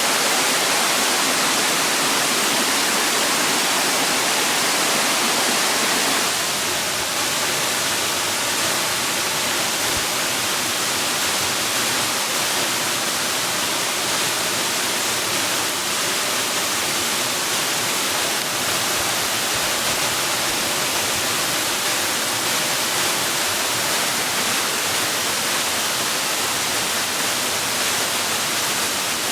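Steady rush of falling water, an even hiss across the whole range, shifting slightly in tone and dropping a little in level about six seconds in.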